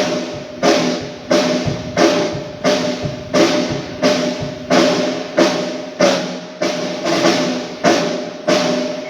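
A drum of the band's drum kit struck alone again and again at an even, slow pace, about three hits every two seconds, each hit dying away before the next. It is the drummer checking the drum's sound for the mix during a sound check.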